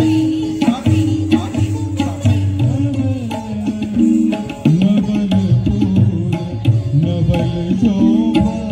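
Indian classical music for Kathak: tabla strokes in a steady rhythm under a sliding, pitched melodic line.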